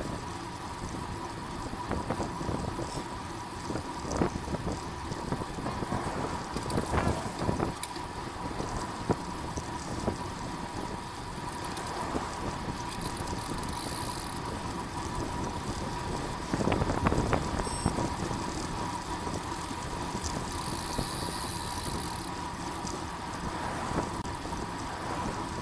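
Steady rush of wind on the microphone and road noise from a road bike ridden at race speed, with a faint steady whine and a few brief knocks.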